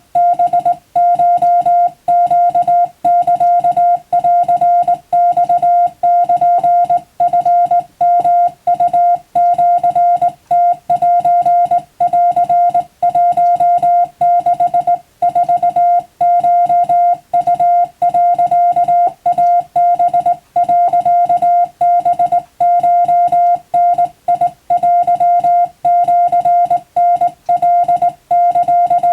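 Morse code sent as Japanese wabun code: a single steady tone of about 700 Hz keyed on and off in a fast run of short and long pulses, with short pauses between characters.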